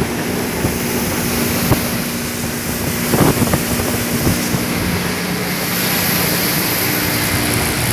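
Motorboat under way: the engine runs with a steady hum under loud wind noise on the microphone and rushing water, with a few knocks about three seconds in.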